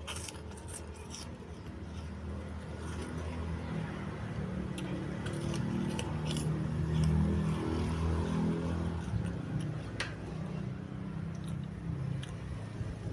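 Low engine rumble of a passing motor vehicle that swells to a peak about halfway through and then eases off, with scattered light clicks and taps over it.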